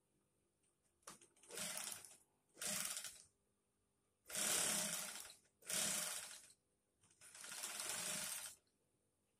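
Industrial sewing machine running in five short bursts of about a second each, stopping briefly between them, as the treadle is pressed and released to sew in short runs.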